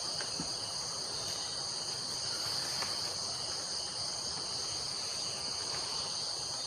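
Steady high-pitched insect chorus, a continuous shrill drone without a break.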